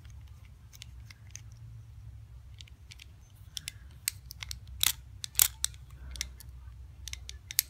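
Small screwdriver working a tiny screw out of a Shimano Calais baitcasting reel: scattered sharp metal clicks and scrapes, the loudest a little past halfway, over a low steady hum.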